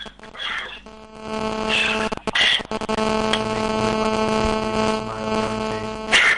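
A steady buzzing hum at one fixed pitch starts about a second in and cuts off abruptly near the end, with a couple of brief voice sounds over it.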